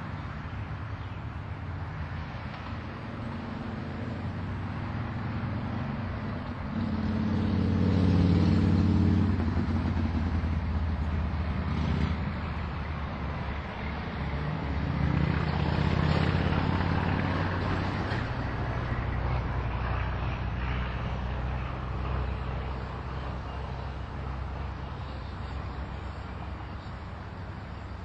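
Road traffic: vehicles passing on a road, a low engine and tyre hum that swells loudest about eight seconds in and again about sixteen seconds in.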